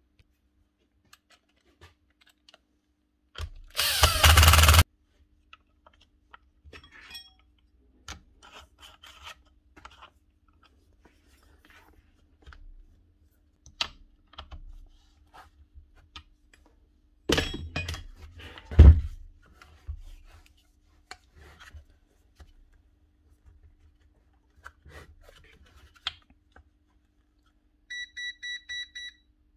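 Hand work on a Bosch GSH4 demolition hammer being put back together: scattered clicks, knocks and rubbing of plastic and metal parts. A loud burst of power-tool noise lasts about a second and a half a few seconds in, another loud burst comes about halfway, ending in a heavy thud, and a short run of high beeps sounds near the end.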